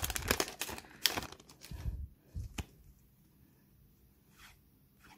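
Foil wrapper of a Pokémon booster pack being handled: a scatter of crinkles and clicks for about the first two and a half seconds, then it goes quiet.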